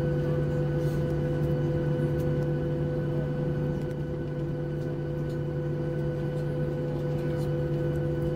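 Boeing 737-800 cabin hum at taxi: the CFM56-7B engines at low power with the air conditioning, a constant rumble carrying several steady droning tones.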